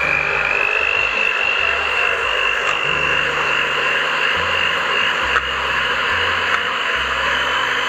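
Electric hand mixer whipping vegetable cream in a stainless steel bowl: a steady high motor whine with a rasping beater noise, its pitch creeping slightly upward. A single click about five seconds in.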